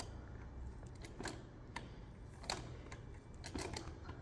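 Irregular clicks and light knocks, about six of them, over a low steady hum, as the electric gear motor and rear wheel of a home-built RC lawn mower are turned by hand.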